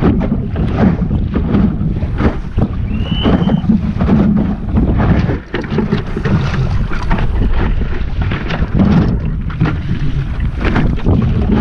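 Wind buffeting the microphone of a camera mounted in a small sailing dinghy, with water splashing and slapping against the hull in irregular gusts and bursts. A brief high chirp sounds about three seconds in.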